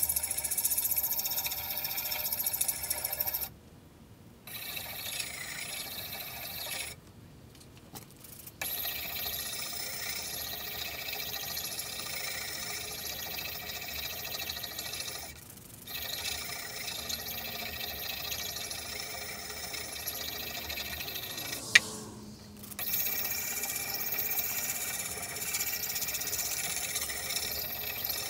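A small handheld electric tool's motor whirring at high speed against a steel axe head, stopping briefly four times. A single sharp click just before the last stop.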